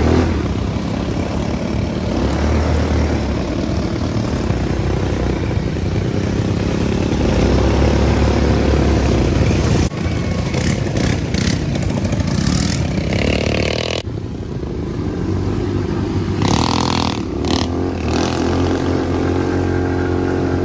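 ATV (quad bike) engines running and revving, with a rough, noisy rattle. The sound jumps abruptly about ten and fourteen seconds in.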